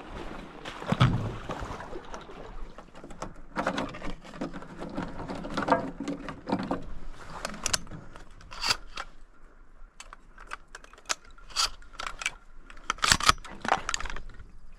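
Handling noises: a scattered series of clicks, knocks and scrapes from gear being moved and worked by hand, with a heavier knock about a second in.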